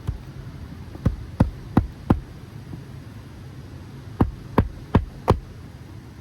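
Hammer driving a roofing nail into an asphalt shingle: two runs of four sharp strikes, about three a second, with a pause of about two seconds between them.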